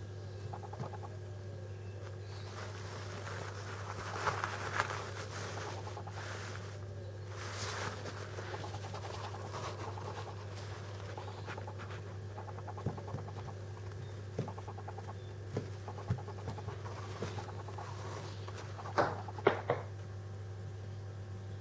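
Month-old Senegal parrot chicks making soft, rapid pulsed calls and shuffling on a knitted blanket, over a steady low hum. A few sharp clicks come near the end.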